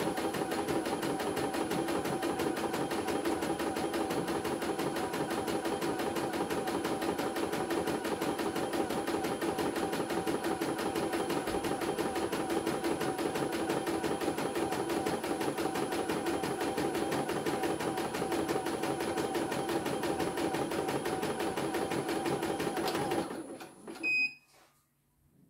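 CNY E900 computerized embroidery machine stitching at a steady fast needle rhythm, then stopping abruptly near the end, followed by two short beeps. The stop comes as the thread runs out and its knotted join pulls through.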